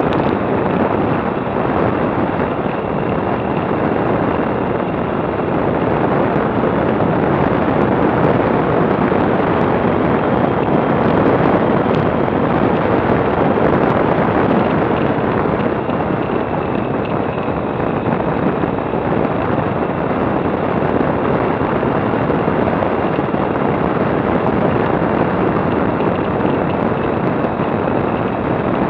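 Steady wind rush on the microphone of a camera mounted on a moving motorcycle, with the motorcycle's engine running under it at a steady cruise.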